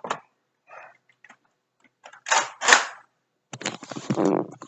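Handling noises: two short loud rustling, clattering bursts with a sharp click a little over two seconds in, then a longer stretch of rustling and clatter.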